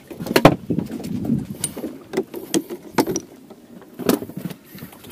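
A series of scattered, irregular knocks and clicks, the loudest about half a second in.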